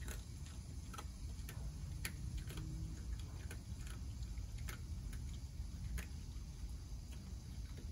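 Young opossum chewing dry cat food: irregular, crisp crunches about once or twice a second, over a steady low rumble.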